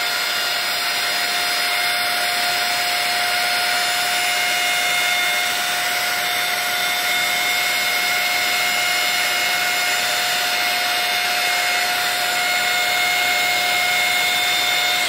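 Small hot-air gun running steadily, its fan blowing with a constant whine while it shrinks heat-shrink tubing onto an RC plane's pushrod. It cuts off right at the end.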